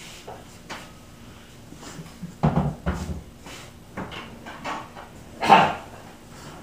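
Kitchen cupboard doors and their contents knocking as cabinets are searched: a few scattered thuds and bumps, the loudest a sharp bang about five and a half seconds in.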